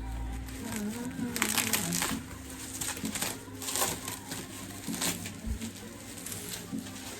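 Plastic wrapping crinkling and crackling in irregular bursts as it is handled and pulled off a new sign.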